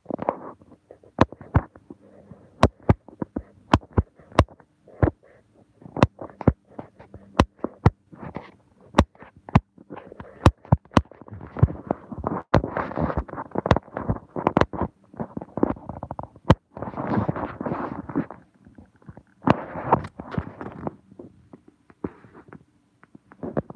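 Phone being handled close to its microphone: irregular sharp taps and knocks, with stretches of rubbing and rustling in the middle and again near the end.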